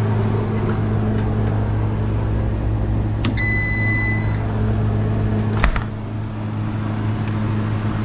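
An AdvantEDGE reach-in refrigerator's electronic controller gives one beep about a second long as it powers up, over a steady low hum. A single knock follows a couple of seconds later.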